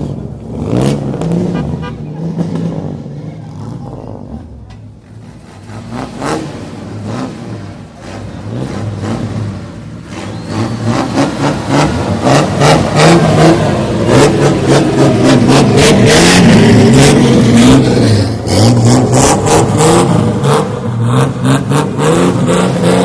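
Car engines revving up and down repeatedly, with many sharp cracks through the revs. The revving grows louder about halfway through.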